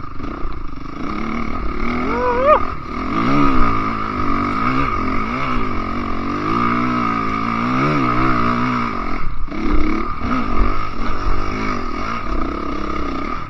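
Enduro dirt bike engine revving up and down over and over as it is ridden along a rough trail, its pitch rising and falling every second or so. There is a sharp rev about two and a half seconds in and a brief drop off the throttle around nine seconds in.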